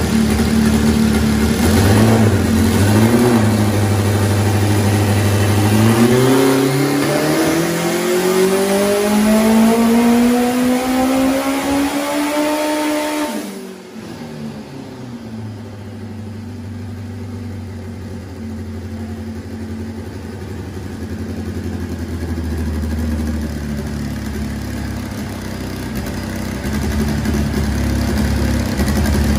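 Turbocharged B20 VTEC four-cylinder of a drag-race Honda Integra on a hub dyno, making a full-throttle tuning pull under boost. It runs steadily with one short blip, then its note climbs steadily in pitch for about seven seconds. About halfway through it is cut off suddenly and drops back to a lower, quieter steady running.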